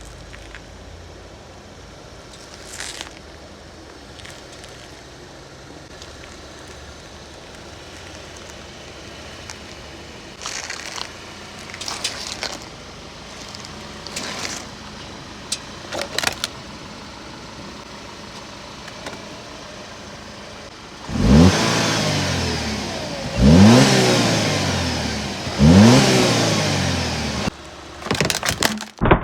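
Car engine running with scattered crunches and crackles as a tyre rolls over objects. Then the engine revs three times, about two seconds apart, each rev rising and then falling away.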